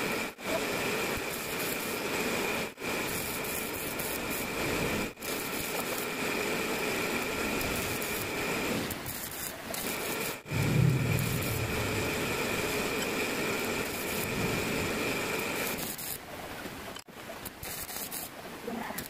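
Stick (arc) welding on a damaged crankshaft journal: the arc crackles and sizzles steadily as weld is laid on, breaking off briefly a few times. A short low rumble stands out about halfway through.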